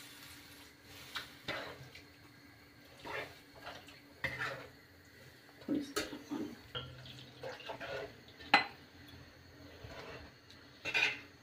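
Spatula scraping and knocking against a non-stick kadhai as it stirs a freshly watered masala gravy, in irregular strokes, with one sharp knock about eight and a half seconds in.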